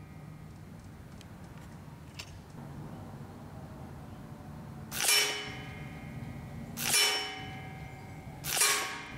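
Benjamin Gunnar regulated PCP air rifle firing three shots about two seconds apart. Each is a sharp crack followed by a short metallic ringing. A few light clicks come shortly before the first shot.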